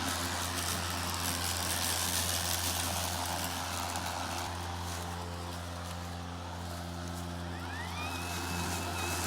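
Ego 22-inch cordless 56-volt battery lawn mower running steadily while mowing: an even electric motor hum under a broad hiss. About eight seconds in, a high whine rises and then holds steady.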